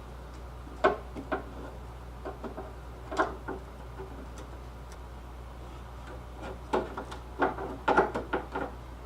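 Irregular light clicks and taps from working the exterior door handle and its linkage rod clip loose inside a 1965 Mustang's door with a screwdriver. They come in a few short groups, with the busiest run near the end.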